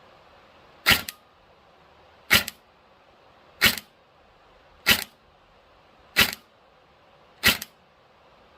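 Airsoft electric gun (AEG) test-firing single shots, six in all at an even pace of about one every 1.3 seconds, each shot followed by a softer second click. It is firing and feeding consistently after its hop chamber was shimmed back against the gearbox with a rubber O-ring to cure misfeeds.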